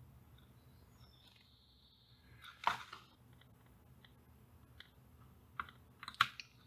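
A few faint clicks and ticks as a small electrolytic capacitor is worked loose from a circuit board by hand, the sharpest click about two and a half seconds in, over a low hum.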